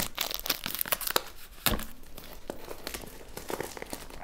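Clear plastic wrap crinkling as it is pulled and torn off a phone box by hand, in a run of irregular crackles.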